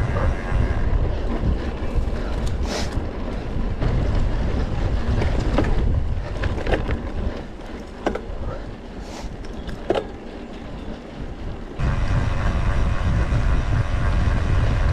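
Wind buffeting the microphone of a camera on a moving mountain bike, with scattered sharp clicks and rattles from the bike over rough ground. The wind rush drops away about halfway through and comes back suddenly near the end.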